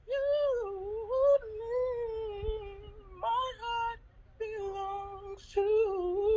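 A man singing unaccompanied in a high voice: several phrases of long held notes that bend and slide in R&B-style runs, with short breaths between them.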